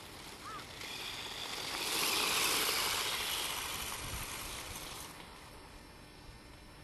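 Radio-controlled electric motorcycle running across rough grass: a rushing noise that swells about two seconds in, then fades as the bike pulls away.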